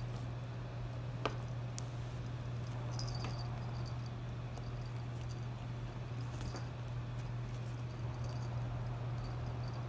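A steady low hum underneath light play noises: a few sharp clicks and taps, and faint high tinkles of a small bell on a kitten's collar as the kittens bat at a paper strip.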